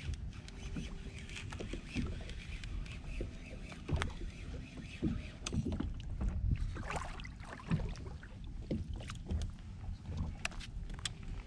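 Water sloshing and lapping against the plastic hull of a Hobie Outback kayak, with scattered irregular knocks and clicks.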